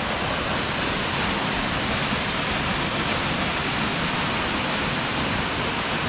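Waterfall heard as a steady, even rush of falling water, unbroken throughout.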